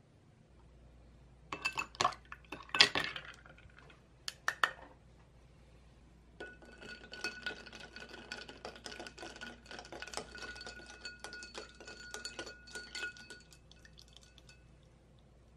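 Ice cubes dropped one after another into a drinking glass of coffee, clinking sharply against the glass. About two seconds later a metal spoon stirs the ice round the glass for about eight seconds: a rapid run of clinks with the glass ringing.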